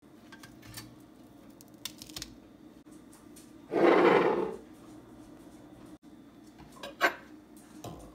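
Handling sounds at a kitchen counter: a loud rubbing scrape lasting just under a second about halfway through, then a sharp click and a fainter one near the end as a glass Marmite jar is opened and a table knife goes into it.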